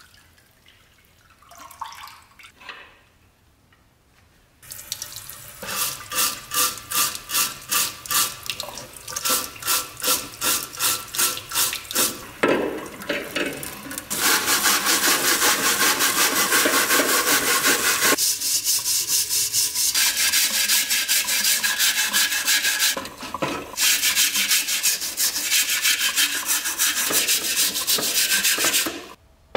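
Liquid dripping off a rusty metal camping-stove burner lifted from its soaking bath, then a brass wire brush scrubbing the rusty metal under running tap water. The scrubbing starts as regular back-and-forth strokes, about two a second, then becomes fast, continuous scrubbing that stops just before the end.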